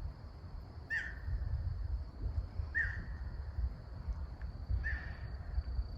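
A bird giving three short calls about two seconds apart, over a steady high-pitched insect drone and a low rumble.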